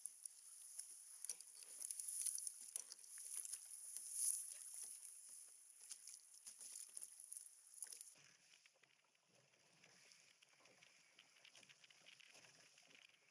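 Choppy water slapping and splashing against a kayak hull, with dense crackling spray. About eight seconds in it gives way to a softer, lower rush of water as the kayak moves through the chop.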